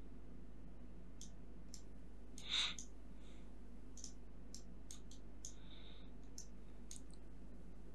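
Computer mouse clicking, about a dozen irregular clicks, over a steady low hum. About two and a half seconds in there is a single short, louder puff of noise.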